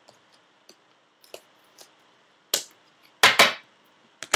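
Thick plastic Topps High Tek trading cards clicking and clacking as they are handled and sorted: a few light clicks, then louder clacks about two and a half seconds in, two close together a little after three seconds, and one more near the end.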